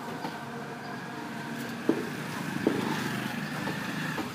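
A motorbike engine running steadily, its pitch creeping up slightly, with two sharp clacks about two and three seconds in.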